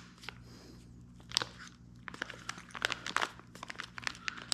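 Irregular small clicks and taps of metal parts being handled: a motorcycle fork leg and a replacement drain bolt being tried in the hole at the bottom of the fork, over a faint steady low hum.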